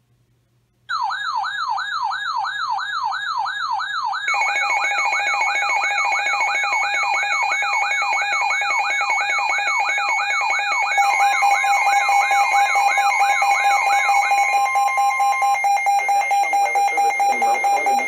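Several NOAA weather alert radios sounding their alarms together for a severe thunderstorm warning. It starts with a fast warbling siren that sweeps down about three times a second. About four seconds in, steady alert tones from other radios join it, then rapid high beeping; the warble stops near the end while the steady tones keep going.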